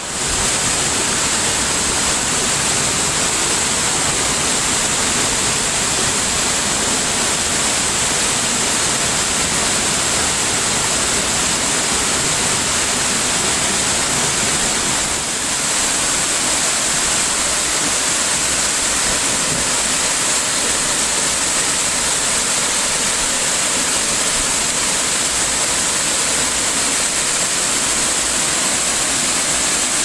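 Waterfall: water pouring over rock in a loud, steady rush, briefly a little quieter about halfway through.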